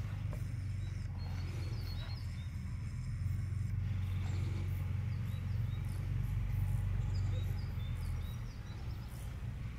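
Outdoor ambience: a steady low rumble with small birds chirping again and again in short, high, falling notes.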